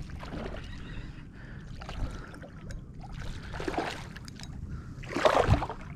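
Water sloshing and splashing around a kayak, with small knocks, and a louder splash a little over five seconds in.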